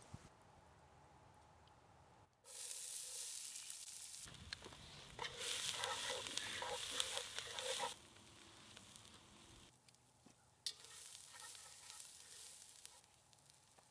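Diced onions sizzling in a cast-iron Dutch oven over hot coals, stirred with a utensil that scrapes against the pot. The sizzle starts about two seconds in and comes in two loud stretches with a quieter gap between.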